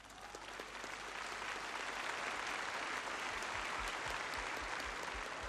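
A large crowd applauding: the clapping swells over about the first second, holds steady, then eases off near the end. A few low thuds run under it in the second half.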